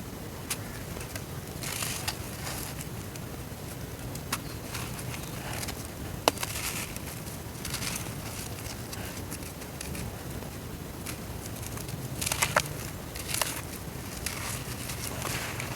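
Dry brown dirt crumbling in water, with a soft, continuous crackle and scattered sharp clicks, a few louder ones bunched together about three-quarters of the way through.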